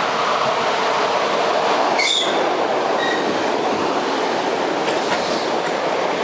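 ED4M electric multiple unit running close past along the platform, a steady loud rush of wheels on rails. Brief high-pitched squeals come about two seconds in and again about a second later.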